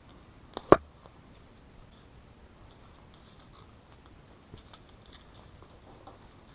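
Wire cutters snipping through electrical wire: one sharp snap about a second in, then faint clicks and rustling as the wire is handled.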